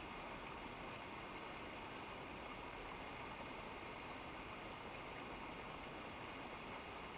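Steady rush of running water from a mountain stream or waterfall, an even unbroken hiss.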